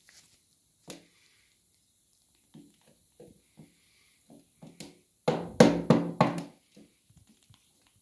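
African grey parrot making a series of short knocks, spaced out at first, then a louder quick run of them about five seconds in.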